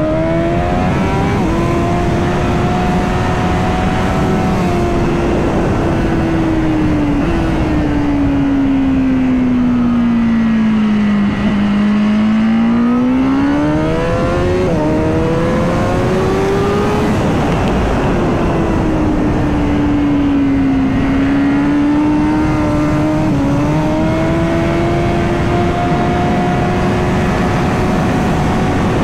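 Honda Fireblade's inline-four engine heard onboard at speed over a haze of wind rush. The revs fall smoothly for several seconds, then climb hard through a couple of gear changes around the middle. After that the engine runs at a high, fairly steady pitch with small dips.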